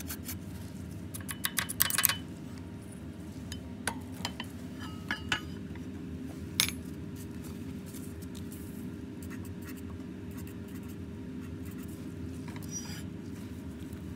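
Metal spatula clinking and scraping against a small glass beaker as alum crystals are scraped off filter paper into it, a quick run of clinks about one to two seconds in and a few single clicks later. A steady low hum runs underneath.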